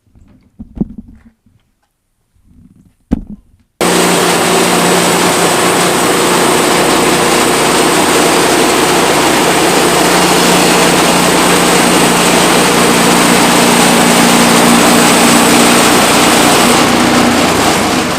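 Small gas engine of a portable band sawmill running steadily at high speed. It cuts in abruptly about four seconds in, after two light knocks.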